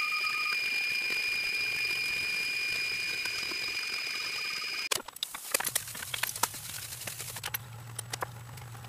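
Anet A8 3D printer running a print, a steady high whine with a fainter, higher tone above it. About halfway through this cuts off and gives way to irregular clicks and taps of parts being handled and fitted by hand, over a low hum.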